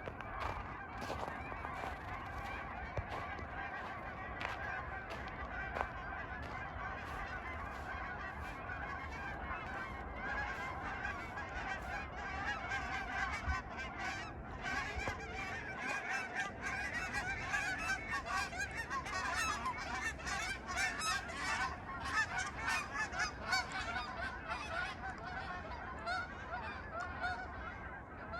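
A flock of geese honking, many calls overlapping and growing denser and louder about halfway through, with short crunching sounds mixed in.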